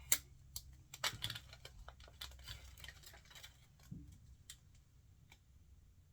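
Light clicks, taps and rustling from small plastic toy accessories and a sticker being handled, busiest in the first few seconds and then thinning to a few single clicks.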